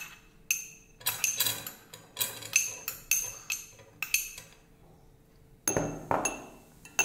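Metal spoon clinking and scraping against small glass bowls as ingredients are spooned out: a run of sharp clinks with a brief glassy ring, a pause about four and a half seconds in, then a short scuffling sound near the end.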